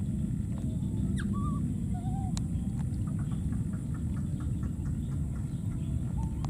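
An infant macaque giving a few short, pitched cooing cries that bend up and down, over a steady low rumble; a sharp click about two and a half seconds in and a quick run of faint ticks in the middle.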